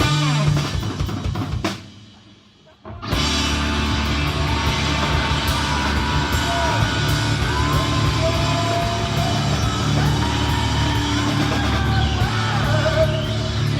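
Loud rock music with drums and shouted singing. It drops out briefly about two seconds in, then comes back at full level.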